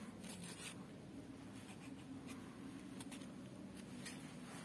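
Faint rustling of a paper flower being handled, with a few light ticks, over a low steady hum.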